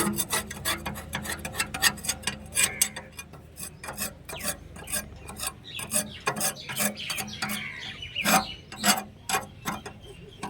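Metal parts being worked with hand tools during a tractor brake repair: a quick, irregular run of clicks and scraping, with a few louder knocks near the end.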